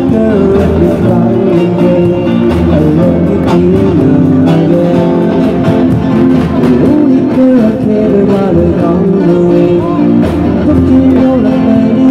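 Live amplified band music: electric guitar and a drum kit playing a pop oldie, with a man singing into a microphone.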